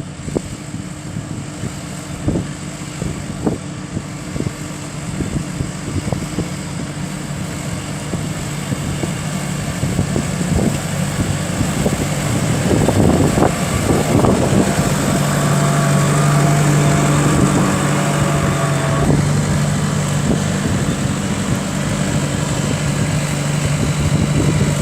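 Diesel engine of a Case 120 tractor pulling a four-furrow reversible plough. It grows steadily louder as the tractor comes closer, and from about halfway through its engine note is strong and steady.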